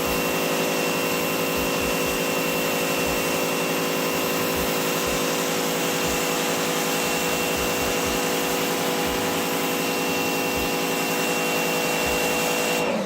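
Sun Joe SPX3000 electric pressure washer spraying through its 25-degree tip: the motor and pump hum steadily under the hiss of the water jet. It cuts off suddenly near the end.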